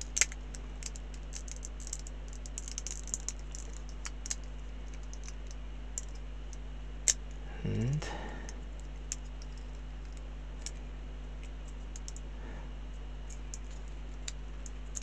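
Small plastic model-kit parts clicking and tapping as they are handled and pressed together, in scattered light clicks with a couple of sharper ones, near the start and about seven seconds in. A brief low hum of a voice comes about eight seconds in.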